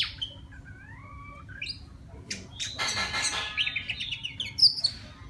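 Male oriental magpie-robin singing: a varied phrase of slurred whistles that glide up and down, harsh scratchy notes, a quick run of repeated high notes, and a sharp high note near the end.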